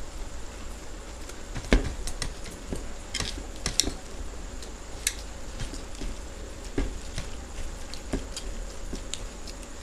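Eating sounds of puffed rice (muri) mixed with ghugni: irregular small clicks and crackles from fingers scooping and mixing it on the plates, and crunchy chewing. A sharper knock comes just under two seconds in.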